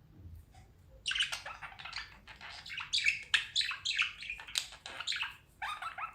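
Budgies (budgerigars) chattering in quick, dense bursts of chirps and squawks. It begins about a second in and pauses briefly near the end.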